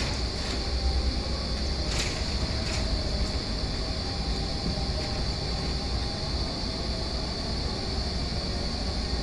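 Electric drive carriage of a retractable stadium roof running along its steel rail during a speed test: a steady mechanical rumble of geared motor and steel wheels on rail. A few light clicks come about two to three seconds in.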